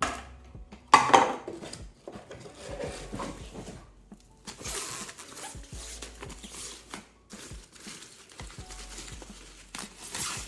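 Hard plastic vacuum parts and packaging being handled: a sharp knock about a second in, then light clatter and a stretch of rustling.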